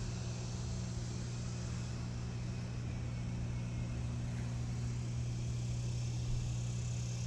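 Steady low machine hum that never changes in pitch or level, with a faint even hiss above it.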